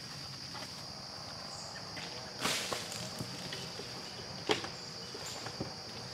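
A steady high-pitched insect chorus, with a few handling noises over it from a man climbing onto an ATV and working at a barrel feeder: a short rustle about two and a half seconds in and a sharp knock about four and a half seconds in.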